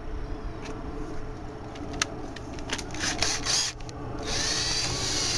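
A few clicks and knocks, then about four seconds in a power drill starts and runs steadily, spinning dryer vent cleaning rods and brush as they are backed out of the vent line.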